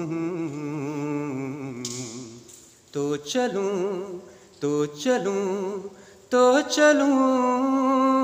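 A man singing a Hindi film song unaccompanied, drawing out long notes with a wavering vibrato, in several phrases with short breaks between them.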